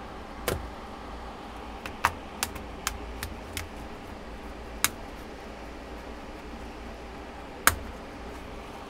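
Sharp plastic clicks, about nine at irregular intervals with the loudest near the end, as a plastic pry pick is worked along the seam of a Samsung Galaxy Tab SM-T800 tablet. The clicks are the clips popping as the screen separates from the frame.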